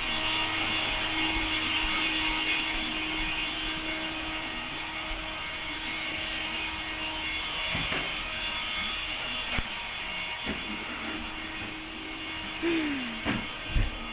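Small cordless stick floor sweeper-vacuum running with a steady motor whir. Near the end come a few knocks and a short falling squeak.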